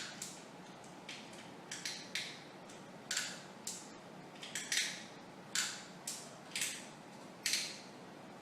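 Irregular run of short, sharp clicks and taps, about two a second, from the quick-release plate of a Sunpak Ultra 6000PG tripod being handled and fitted to a camera.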